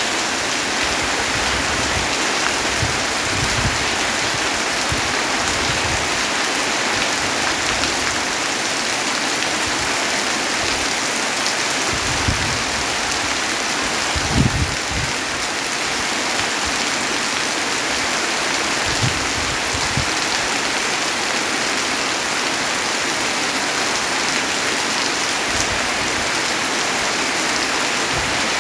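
Steady heavy rain falling in a dense, even hiss, with occasional low thuds of heavier drops; one louder thud about halfway through.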